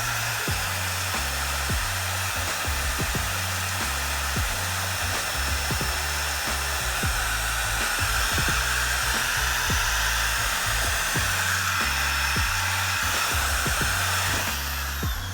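An electric drill running steadily at speed with a whooshing motor noise that stops near the end, over background music with a stepping bass line.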